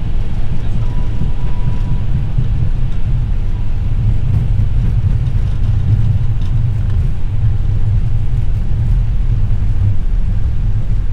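Steady, loud rumble in an Airbus A321 cockpit during the landing rollout. The CFM56-5B engines are in reverse thrust and the wheels are running on the runway as the airliner decelerates after touchdown.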